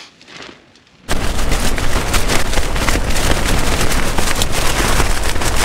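Strong wind battering a tent: the fabric flaps and cracks rapidly over a heavy rumble of wind buffeting the microphone. It starts abruptly about a second in.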